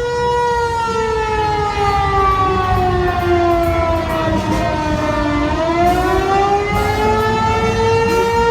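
Outdoor tornado warning siren wailing: one loud, steady tone that slowly falls in pitch over about five seconds, then rises back, with a low rumble underneath.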